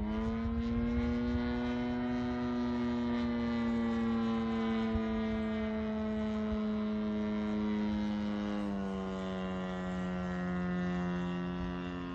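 Propeller engine of a 50–60cc-class Hangar 9 Pitts S-2B RC biplane in flight. It runs at a steady high pitch after opening up just as the sound begins, then its pitch steps down a little about nine seconds in.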